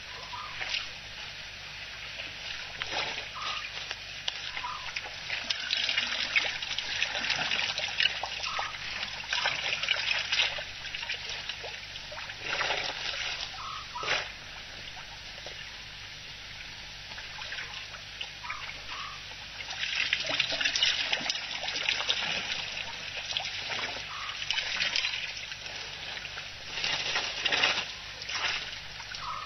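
African elephants drinking at a waterhole: their trunks slosh and splash the water in irregular bursts, some louder stretches lasting a few seconds. A faint steady low hum runs underneath.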